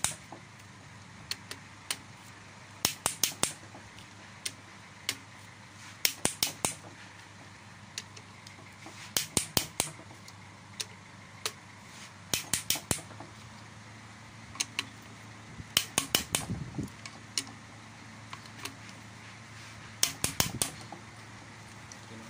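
Ratchet wrench clicking as connecting-rod cap bolts are tightened on a Nissan MR18 engine: short bursts of three to five sharp clicks every few seconds, with single clicks between. A steady low hum runs underneath.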